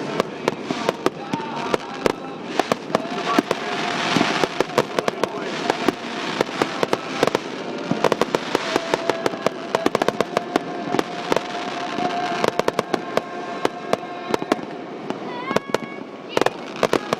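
Fireworks display: a dense run of sharp bangs and crackles, with a steady whistle running through much of it and rising whistles near the end.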